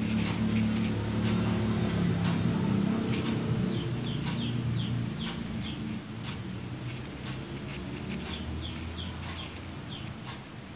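Birds chirping repeatedly with short, falling chirps, over a low rumble that fades out about halfway through, and a few light clicks.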